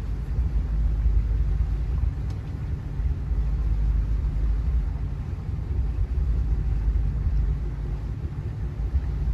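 Steady low rumble aboard a motorboat under way: engine drone mixed with wind and water noise.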